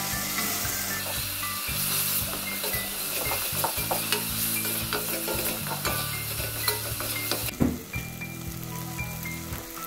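A tomato, onion and garlic refogado sizzling in a stainless steel pot as it is stirred with a wooden spoon, with light clicks of the spoon against the pot. The sizzle thins out about seven and a half seconds in.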